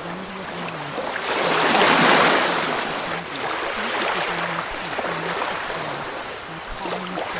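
Ocean waves washing ashore, with one wave swelling loudest about two seconds in.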